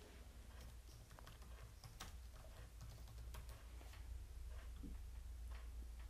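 Faint typing on a computer keyboard: light, irregular key clicks with a few mouse clicks, over a low steady hum.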